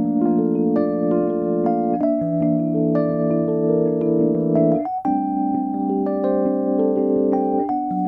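Electric stage keyboard playing sustained chords with an electric-piano tone, without singing. The chords change about every two and a half to three seconds, and some held notes waver.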